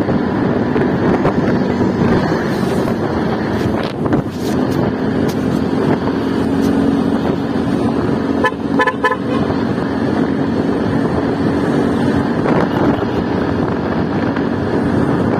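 Motorcycle riding at about 50 km/h: a steady engine drone under wind and road noise. About eight and a half seconds in, a vehicle horn gives a few quick toots.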